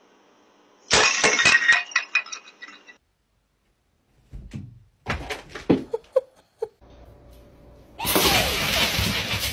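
A sudden crash about a second in, with a rattling scatter of pieces breaking and clattering for about two seconds, as a potted plant stand is knocked over by a climbing cat. Near the end, dogs barking loudly.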